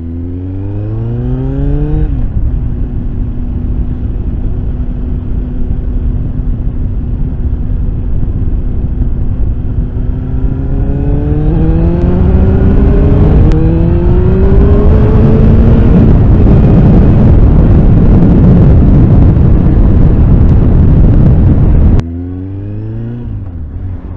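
Motorcycle engine on the move: it pulls up in pitch for a couple of seconds, settles to a steady drone while cruising, then climbs again as the bike accelerates, with wind rushing loudly over the microphone at speed. Near the end the loud rush drops away abruptly, leaving a quieter engine note.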